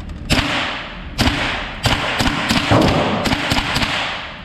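A run of about ten gunshots on a shooting range, irregularly spaced and coming faster in the second half, each trailing off in echo.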